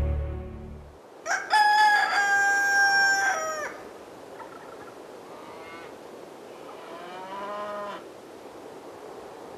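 Rooster crowing: one loud, drawn-out crow that rises, holds and drops off, followed by two fainter, shorter calls from farther off.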